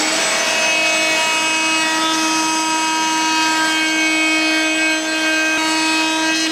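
Electric wood router running at full speed, a steady pitched motor tone with the hiss of the bit cutting a chamfer along the edge of a wooden disc.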